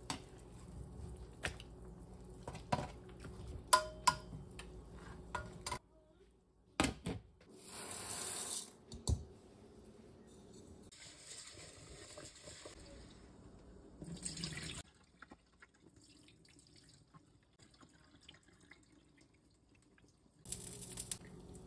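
Metal tongs click sharply against a stainless steel pan as chicken pieces are turned in their juices. After a pause, tap water runs in several bursts while uncooked rice is washed by hand in a rice cooker's inner pot.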